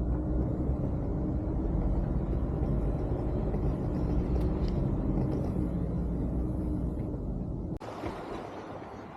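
Steady low rumble of a motor vehicle running, cutting off abruptly near the end to a quieter outdoor background.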